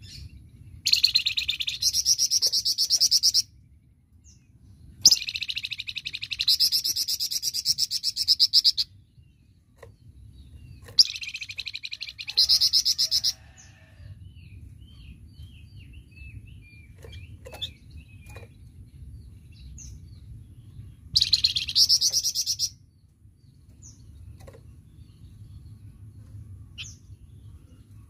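A flamboyan songbird singing in loud bursts of very fast, high repeated notes, a 'tembakan' rattle of a couple of seconds each. There are four bursts, with softer scattered chirps between them and a low rumble underneath.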